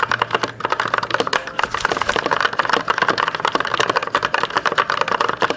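Fantech Atom 81 mechanical keyboard with red linear switches being typed on fast, a dense, even clatter of keystrokes.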